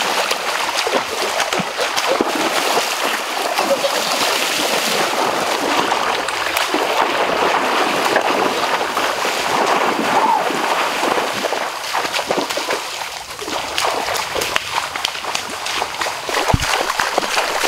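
Water splashing and sloshing as a person wades through a muddy, flooded stream, over the steady rush of the flowing water.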